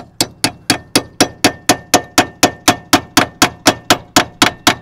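Rapid, even hammer blows on the steel steering knuckle of a Ford Focus Mk3, about four a second, each ringing with a clang. The hammering drives the rust-seized knuckle down off the front suspension strut.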